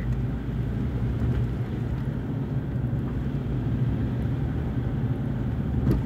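Steady low rumble of a car driving, engine and tyre noise heard from inside the cabin.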